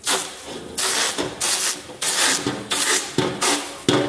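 A soft ball of dough being dabbed again and again onto a heated copper tray (sniwa) to lay down a thin dioul pastry sheet. It makes a quick run of rasping, hissing strokes, about six or seven in four seconds.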